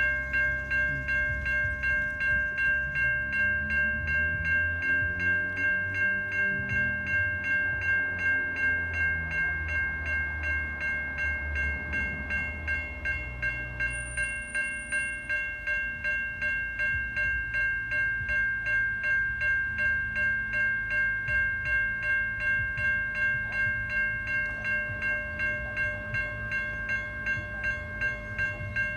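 Level-crossing electronic bells (older-style Safetran Type 3) ringing continuously, a rapid pulsing electronic ding about two and a half times a second, signalling that the crossing is active for a train. Under the bells a train rumbles through, heaviest in the first dozen seconds with its engine note shifting in pitch, then lighter.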